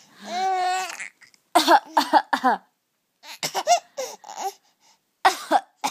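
Baby coughing in short sharp bursts, several clusters of them, after a drawn-out vocal sound at the start; the coughing seems done for fun, with laughter mixed in.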